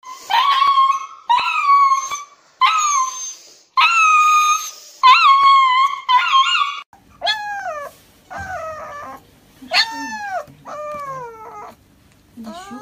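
Husky howling and wailing in distress while restrained for an injection. There are about six long, high-pitched wails, then, about seven seconds in, a husky puppy's shorter cries that rise and fall in pitch.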